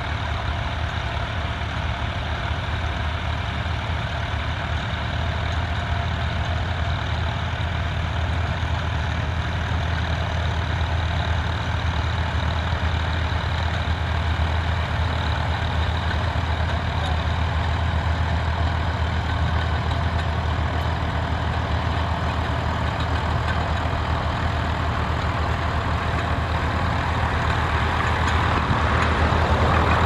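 A John Deere utility tractor's diesel engine running steadily at low revs while it pulls a mounted plough, a constant low hum. It grows a little louder near the end.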